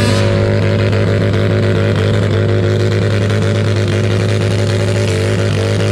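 Modified garden pulling tractor's engine running steadily, its pitch shifting slightly about five seconds in.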